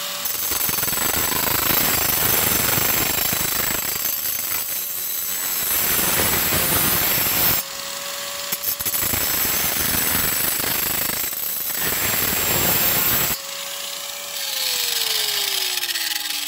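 Angle grinder with a diamond disc grinding the edge of a steel riding-mower blade to sharpen it: a harsh, even grinding noise. It breaks off twice, about two-thirds and four-fifths of the way through, where the disc lifts off and the motor's steady whine shows through. Near the end the whine falls away as the grinder winds down.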